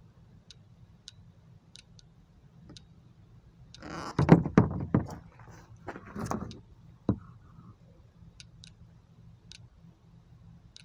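Hard plastic car interior trim pieces knocking and clattering against a plastic bin as they are handled: a burst of knocks about four seconds in, another about six seconds in, and one sharp knock a second later.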